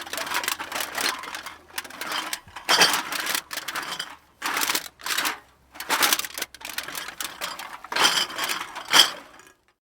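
Empty glass bottles being shaken together, clinking and rattling in repeated shakes of about a second each with short pauses between them. The last shake stops just before the end.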